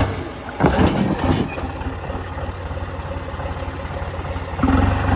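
Tractor diesel engine running, with a steady low pulse, growing louder about four and a half seconds in.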